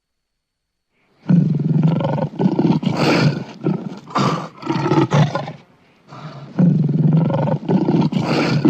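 Lion roaring: after about a second of silence, a long run of pulsing roars starts, breaks off briefly a little past the middle, then starts again.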